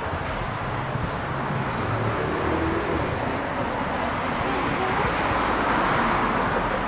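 Street traffic, with a car passing that swells louder about five to six seconds in.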